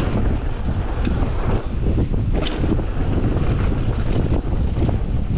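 Wind buffeting the microphone during a fast mountain bike descent, over a steady low rumble of tyres on the dirt trail, with a few short knocks and rattles from the bike.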